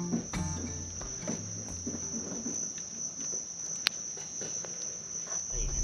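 An insect trilling steadily, one high unbroken tone. A single sharp click about four seconds in.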